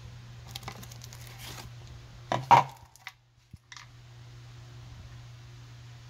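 Handling noise close to the microphone as the wooden target board is handled: rustling, then two sharp rubbing scrapes about two and a half seconds in, followed by a few small clicks.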